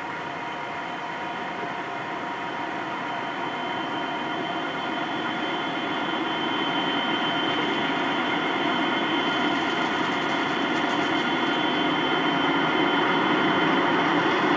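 NSW 82 class diesel-electric locomotive with an EMD two-stroke engine, running as it approaches slowly at the head of an ore train. It makes a steady engine drone with a high whine, growing steadily louder as it nears.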